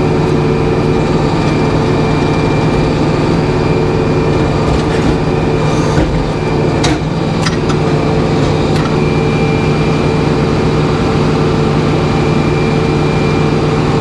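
Sawmill's engine and hydraulic drive running steadily at a constant pitch, with a few sharp knocks near the middle.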